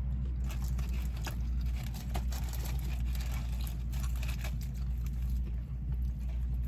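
Steady low hum of a car heard from inside the cabin, with scattered small clicks and crackles of someone eating fried chicken and handling its wrapping.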